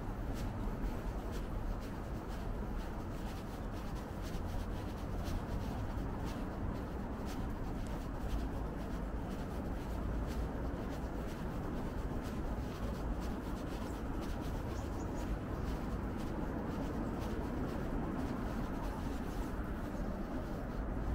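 Quiet street ambience: a steady low rumble with frequent faint, irregular clicks and scuffs over it.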